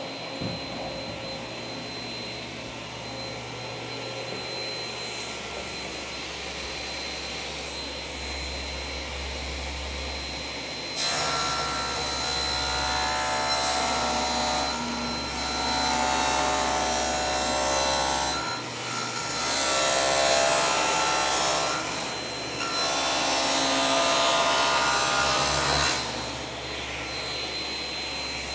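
Table saw running with a steady whine, then its blade ripping through a sheet of plywood from about 11 seconds in for some fifteen seconds. The cut grows louder in three surges as the sheet is fed, then the blade spins free again.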